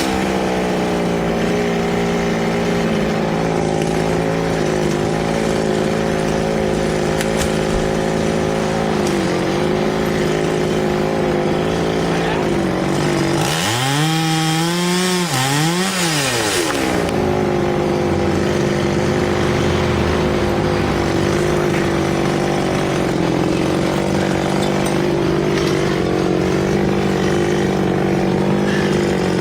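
Two-stroke chainsaw running steadily at high speed. For about three seconds in the middle its pitch dips and swings up and down under load, with a burst of hiss.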